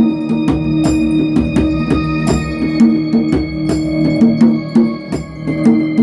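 A Kurzweil digital keyboard holds sustained, organ-like chords in an ambient chord progression, changing chord a little over two seconds in. Over it a djembe is played with bare hands in quick strikes.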